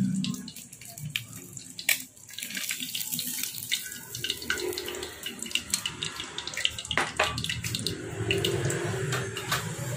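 Hot frying oil in a wok sizzling and crackling around a piece of deep-fried chicken as it is lifted out, with many small pops and two louder sharp clicks, about two seconds in and again near seven seconds.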